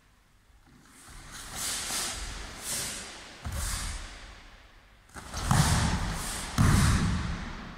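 Karate gis snapping and sharp forced breaths out with each technique as three karateka perform a kata in unison, feet thudding on foam mats. It comes as a series of sudden swishing bursts, the loudest two near the end with a low thud.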